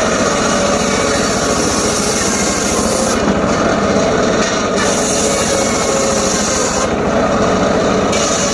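Homemade circular saw running and cutting teak wood. The blade's high hiss falls away twice for about a second.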